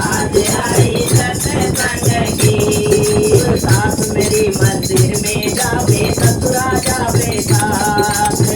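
Devotional bhajan music: a steady, regular drum beat under constant jingling percussion, with a held melody line over it.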